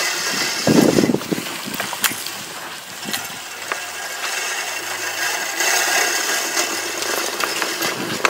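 Troy-Bilt 18-inch Revolution Quiet Cut push reel mower rolling over the lawn, its spinning reel blades whirring and snipping the grass, with a steady rattle and many small ticks. A brief louder bump about a second in.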